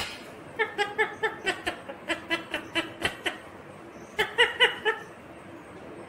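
Indian ringneck parrot giving a laugh-like chatter: three quick runs of short, repeated syllables, about five or six a second, with short pauses between them.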